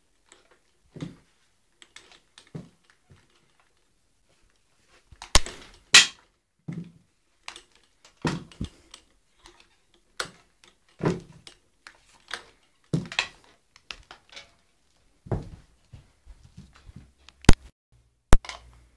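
Irregular knocks, thuds and clicks of things being handled and set down, with two sharp cracks near the end; no motor is running.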